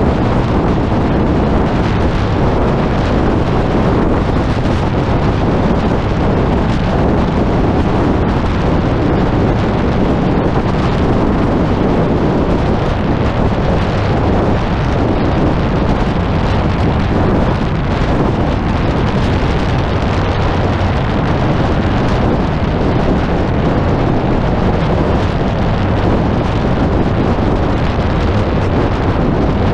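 Heavy wind buffeting on a car-mounted camera at highway speed, over the steady drone of the car's engine and tyres.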